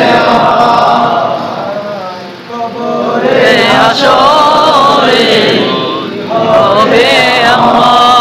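Male voices singing a Bengali Islamic devotional song in chant style, drawing out long, wavering notes between the words, with a short dip in loudness about two and a half seconds in.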